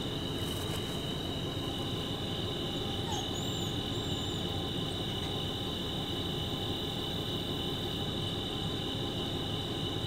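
Crickets trilling steadily in a night chorus, a continuous high, even pitch.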